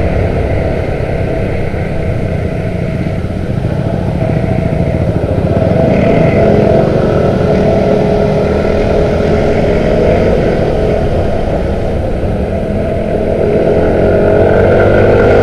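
Small motor scooter engine running under way, with a steady low rumble of wind on the microphone; the engine note climbs and grows louder near the end.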